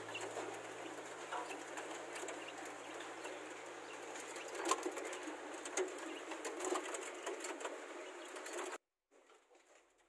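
Young quail in a wire cage calling softly and scuffling about, with a few sharp taps around the middle. The sound cuts off abruptly near the end.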